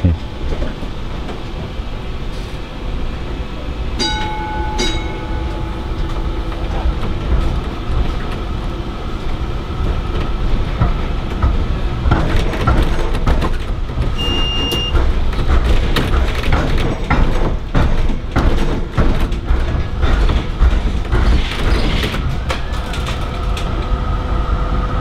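Tram running under way, heard from inside the cab: a steady low rumble, then a long run of sharp clacks from about the middle onward as the wheels cross the rail square's diamond, where the tram tracks cross the railway lines.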